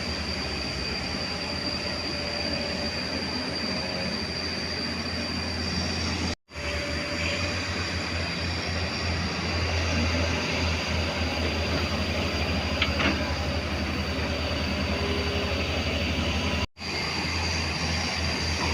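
JCB JS205 excavator working, its diesel engine running steadily with a low hum and a constant high whine over it, and a few faint knocks. The sound drops out briefly twice.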